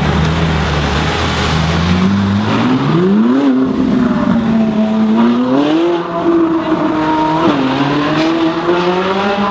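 Ferrari 458 Italia's naturally aspirated V8 accelerating hard, its note climbing in pitch, easing, and climbing again, with a sudden drop about two thirds of the way through as it shifts up a gear before rising once more.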